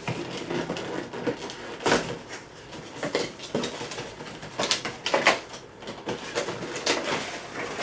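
A small cardboard carton being opened by hand: its top tuck flap is worked loose and lifted, with a few short scrapes, taps and rustles of cardboard spread out over several seconds.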